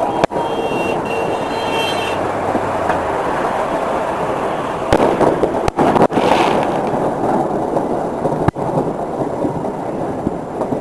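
Fireworks going off in a dense run of crackling pops, with a brief high whistle in the first two seconds.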